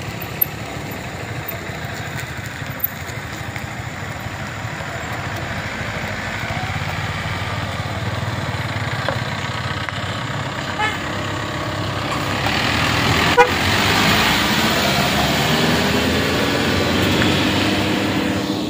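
Light box truck's engine running as it creeps over a rough gravel road past an excavator, growing louder in the last third as it comes close.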